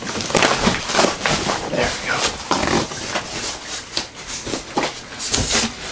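Taped cardboard shipping box being ripped open by hand: a rapid, irregular run of rough tearing and scraping noises.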